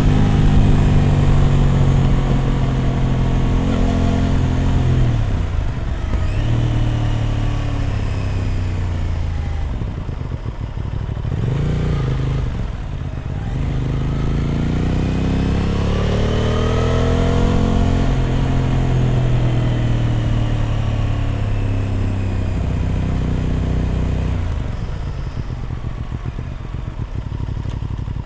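Aprilia RS 660 Extrema's parallel-twin engine through an SC Project exhaust while riding. The engine note holds steady, drops about five seconds in, dips low around ten to thirteen seconds, then climbs again to a peak. It eases off and settles lower near the end as the throttle comes and goes.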